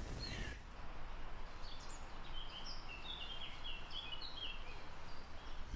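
A small songbird singing a run of short, high chirping notes over faint outdoor background noise.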